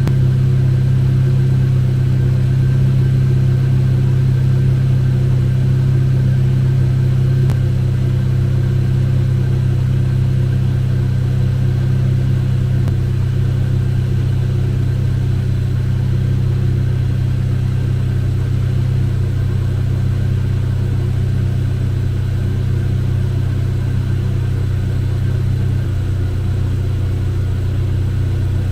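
Chevrolet Cobalt SS's supercharged 2.0 L LSJ four-cylinder running at a steady idle just after being restarted off a charged jumper pack, its note dipping slightly about seven seconds in.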